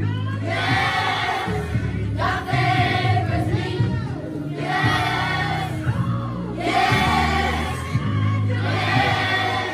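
Children's choir singing together in sung phrases of about two seconds each, with short breaths between them.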